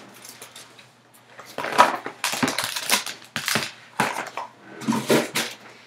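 A foil-wrapped trading card pack being pulled from its cardboard hobby box and handled, giving a run of irregular crinkles and crunches after about a second and a half of near-quiet.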